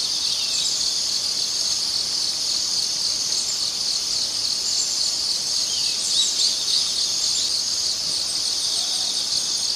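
Steady, dense chorus of insects, with short bird chirps about six seconds in.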